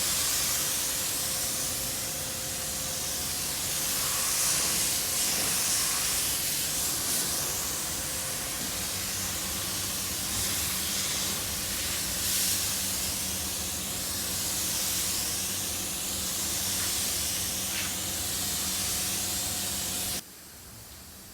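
Compressed-air paint spray gun hissing steadily, with a faint machine hum underneath; it stops suddenly about a second before the end.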